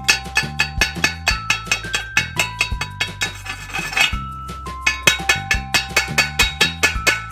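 Background electronic music with a quick, steady beat and a melody of short held notes.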